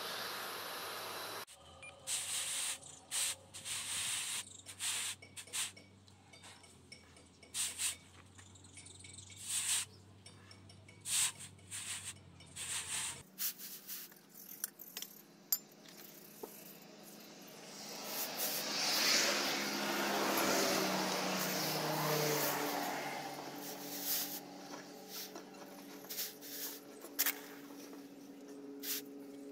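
Charcoal forge crackling and spitting over a low steady hum as a lawnmower-blade knife blank heats. Later the hot steel blade is quenched in a trough: a loud hiss and sizzle swells about two-thirds of the way in, then breaks up into scattered pops.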